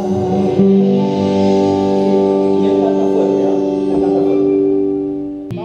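A band playing a long held chord that rings out steadily, then fades near the end, with a sharp click just before it ends.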